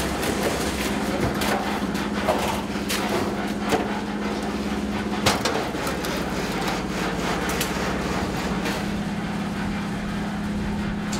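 Construction-site work sounds: scraping and irregular knocks and clatters as wet concrete is shovelled and levelled over steel reinforcement, over a steady machine hum.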